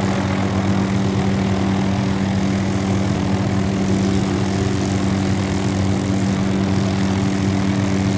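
Steady engine drone with a constant low hum, unchanging in pitch and loudness.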